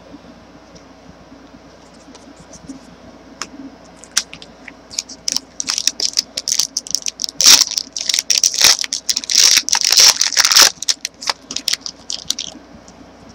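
Foil trading-card pack being torn open and crinkled, and the cards inside handled: a run of crackling and rustling that starts about four seconds in, is loudest for a few seconds in the middle and stops just before the end.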